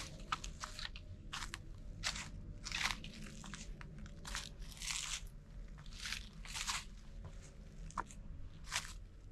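A hiker's footsteps crunching along a forest trail, an uneven step roughly every half second to second.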